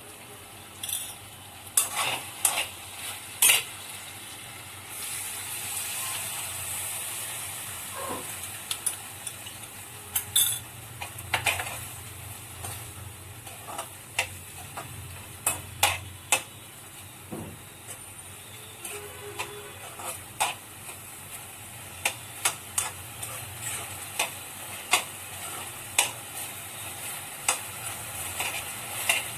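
Food frying in a pan with a steady sizzle while a utensil stirs it, clinking and scraping against the pan at irregular intervals. The sizzle swells louder for a couple of seconds early on.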